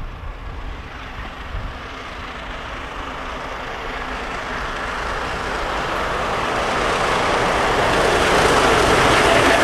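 Three-cylinder LNER Peppercorn A1 Pacific steam locomotive 60163 Tornado approaching under steam at speed with its train. The exhaust and running noise grow steadily louder as it nears.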